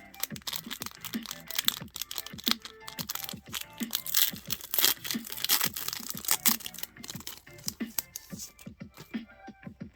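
A foil booster-pack wrapper being torn open and crinkled, loudest in the first half, over background music with a steady beat.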